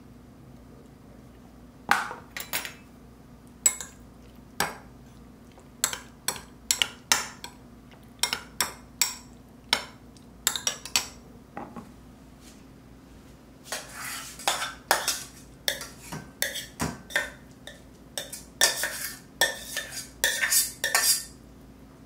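Metal spoon clinking and scraping against a small glass bowl while diced raw salmon is stirred in sauce: a run of short, sharp clinks that starts about two seconds in and comes faster in the second half.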